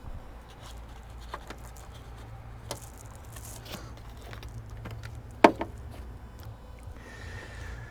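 Hands handling wiring and small parts: scattered light clicks and rustles, with one sharp knock a little past halfway.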